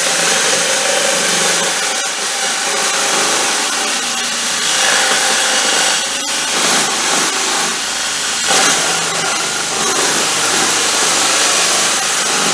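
Electric drill running a sabre-saw adapter, its reciprocating blade sawing through wood with a steady, loud mechanical buzz.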